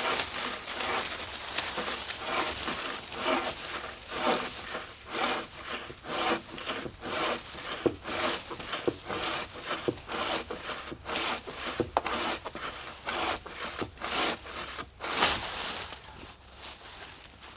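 Bow saw cutting through a dead tree trunk: a steady run of rhythmic back-and-forth strokes, the blade rasping through the wood.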